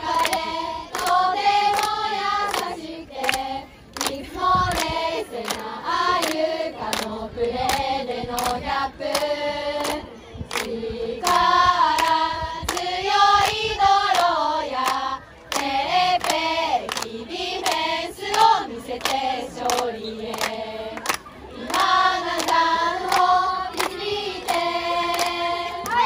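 A group of young women singing a cheer song together in unison, clapping along in a steady rhythm.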